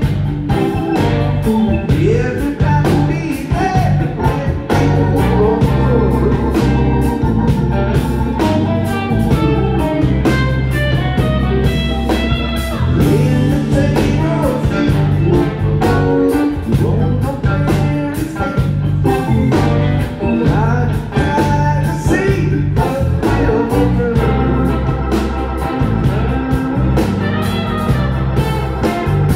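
Live band playing: electric guitar, electric bass and keyboards together, loud and steady.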